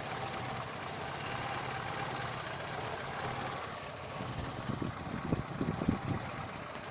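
Daewoo Lanos engine idling steadily under the hood, with its alternator belt drive running. From a little past the middle there are several irregular low thumps, the loudest two near the end.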